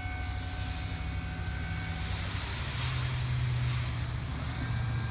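Dump truck engine running steadily as the hydraulic hoist tips the bed, its note rising a little about three seconds in. Crushed stone starts pouring out of the tailgate onto asphalt, a rushing hiss joining about two and a half seconds in.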